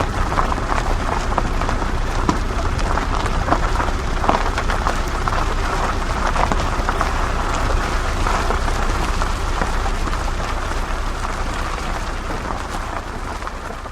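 An off-road 4x4 driving over gravel: a dense crunch of tyres on loose stones, with many small stones ticking and a low engine rumble underneath. It starts fading out near the end.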